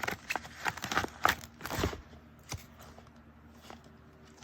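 Rubber stamps being sorted through by hand on a craft table: a quick run of small clicks and knocks in the first two seconds, then a few faint taps.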